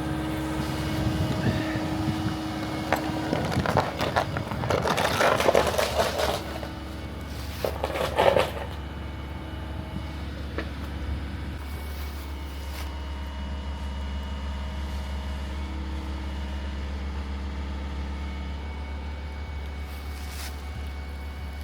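Excavator engine running steadily, with two loud spells of crunching and scraping of rock, about four and seven and a half seconds in.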